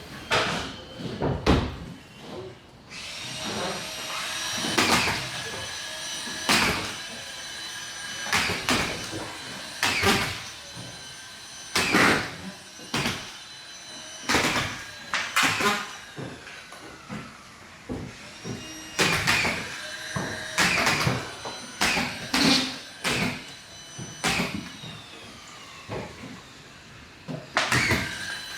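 Drywall screw gun driving screws into a plasterboard ceiling sheet: short motor whines and sharp clacks, repeated irregularly every second or two.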